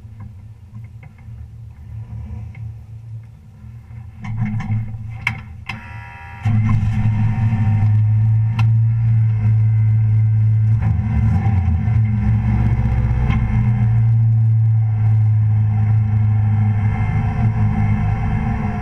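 A race truck's engine, heard from a camera mounted on the truck, turns over briefly and catches about six seconds in. It then idles loudly and steadily.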